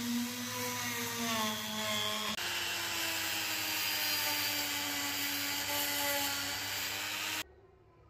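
Electric drill spinning a small wire wheel against rusty steel gun parts: a steady whine over a harsh scratchy hiss. The pitch jumps about two seconds in and falls slowly after that, and the sound cuts off suddenly about seven seconds in.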